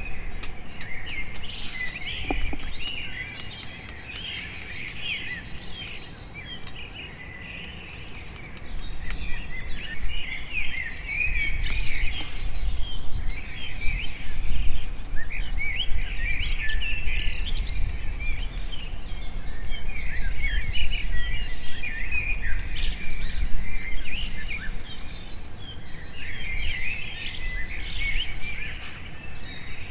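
Many birds chirping and calling, dense and without pause, with a low rumble underneath that grows louder about nine seconds in.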